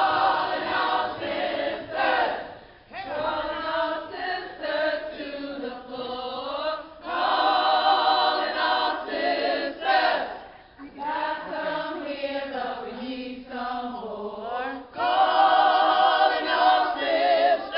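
A group of women singing together, phrase by phrase, with a few long held notes that waver in pitch.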